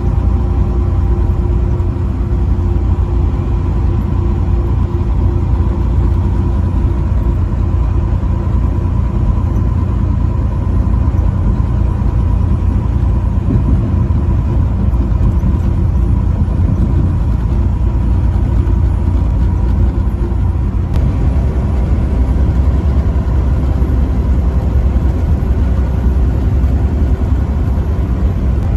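Steady low rumble of a motor vehicle driving at road speed, engine and road noise together, level throughout.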